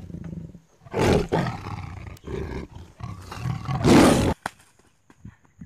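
Tiger roaring and snarling in a series of loud, rough roars; the loudest comes about four seconds in and cuts off sharply.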